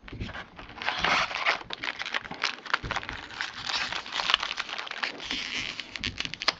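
Crinkling and tearing of a Topps baseball card pack wrapper being ripped open by hand: a busy run of quick crackles and rips.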